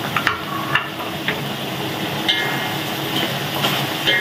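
Chicken and vegetables sizzling in a steel wok while a wooden spatula stirs them, with a few short knocks and scrapes of the spatula against the pan.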